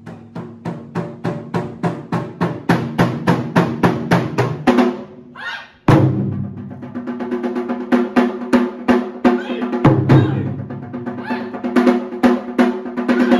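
Ensemble of Japanese taiko barrel drums (nagado-daiko) struck with bachi sticks in a fast, driving rhythm of several strokes a second. About halfway the drumming drops away briefly, then comes back in suddenly and loud.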